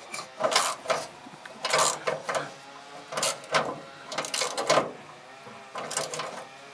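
Ratchet wrench clicking in short bursts, about once a second, as a hood hinge bolt is worked in stroke by stroke; the bolts are going in hard.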